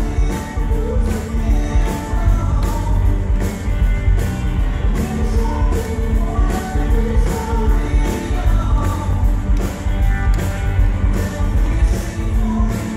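Live rock band playing with a lead vocal over a steady drum beat. Recorded from right beside a PA speaker, so the bass is heavy and boomy.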